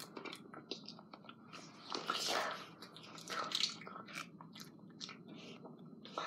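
A person chewing and biting banana close to the microphone, with wet mouth clicks and two louder bursts of noise about two and three and a half seconds in.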